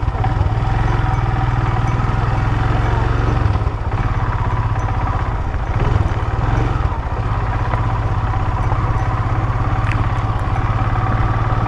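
Royal Enfield motorcycle engine running steadily under way, a loud low engine note.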